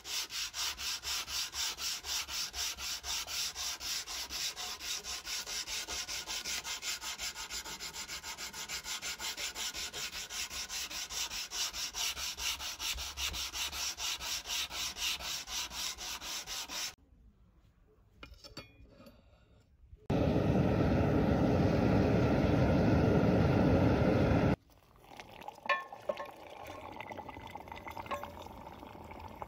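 Sharpening stone rubbed back and forth along the steel edge of a naginata blade held in a vise, a quick, even scraping rhythm for about the first seventeen seconds. After a short pause comes a loud steady rushing noise lasting about four seconds, then quieter crackling and sizzling as the hot blade is quenched in a pipe of oil.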